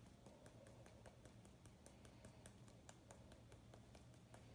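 Faint, quick light taps, several a second, of a paint-loaded watercolour brush being tapped to flick splatter onto the paper.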